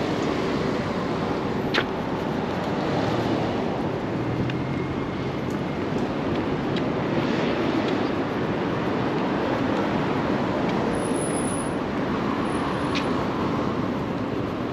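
Road traffic: a steady rush of passing cars and vans, with a sharp click about two seconds in.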